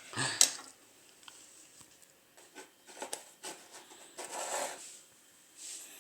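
Quiet handling noises: a few light clicks and taps, then brief rubbing and rustling as small objects are picked up and moved about.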